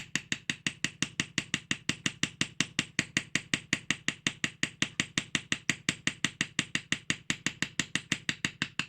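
A small hammer tapping a Japanese kanna plane blade to seat and set it in the wooden plane body: quick, light, even taps, about six a second.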